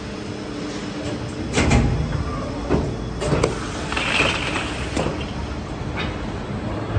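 Bottle-cap injection moulding machine cycling over a steady hum: the 64-cavity mould opens with a loud clunk about a second and a half in, followed by several knocks and a short hiss as the caps are ejected.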